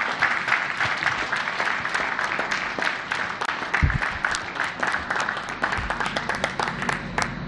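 Crowd applauding, many hands clapping steadily. There is one dull thump about four seconds in.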